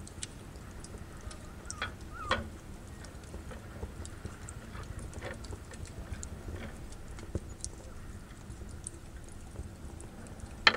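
Light, scattered clicks and knocks of a wire fish-grilling basket being handled and closed around a marinated bonito on a wooden board, with a sharper clack near the end, over a steady low background rumble.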